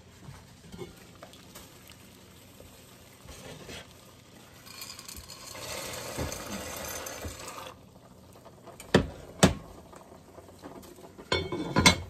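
Dried pinto beans pouring from a glass measuring cup into an enameled cast-iron Dutch oven, a rushing rattle lasting about three seconds. Then come two sharp knocks, and near the end a clatter as the heavy lid is set back on the pot.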